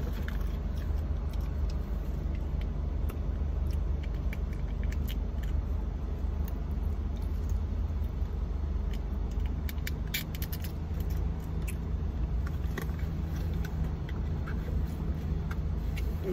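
Steady low hum of a car idling, heard inside the cabin, with a few small clicks and rustles about ten seconds in.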